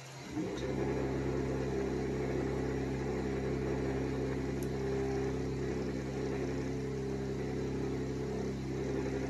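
CNC 3-axis hot-wire EPS foam cutter running, a steady mechanical hum of several low tones that switches on about half a second in.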